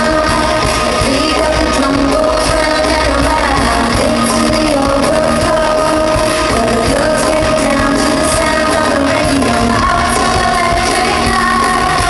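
Female pop group singing live into microphones over loud, beat-driven backing music through an arena PA, recorded from among the audience.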